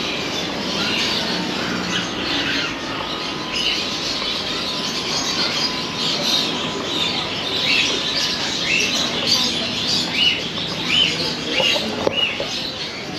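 Small caged birds chirping: many short high chirps over a steady background hum, coming thicker in the second half.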